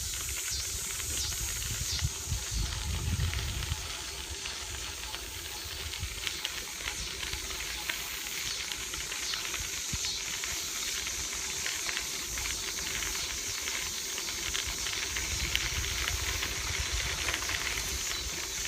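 Steady hiss of a bicycle ride along a trail, with low rumbles of wind on the microphone now and then.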